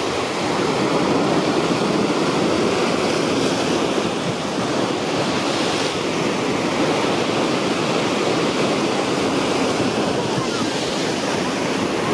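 Steady rushing noise of wind and water.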